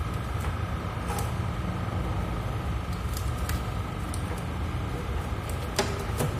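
Plastic vent grille of a chest freezer's compressor compartment handled and pressed into place, with a few sharp plastic clicks and knocks near the end. A steady low hum runs underneath.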